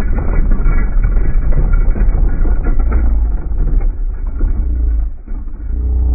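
Hard plastic wheels of a toddler push car rolling over a concrete sidewalk: a dense, loud rattling clatter over a low rumble, easing briefly about five seconds in.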